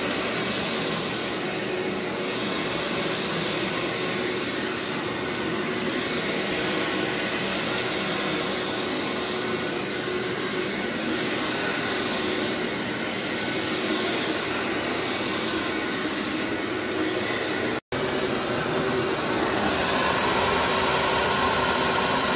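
Vacuum cleaner running steadily during a pre-vacuum of carpet, its motor and airflow making an even whir. Near the end the sound cuts out for an instant and comes back slightly louder.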